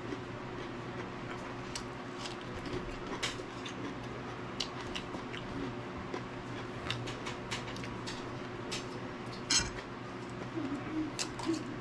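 Eating sounds: scattered soft clicks and crunches of cutlery and chewing over a steady low hum, with one louder click near the end.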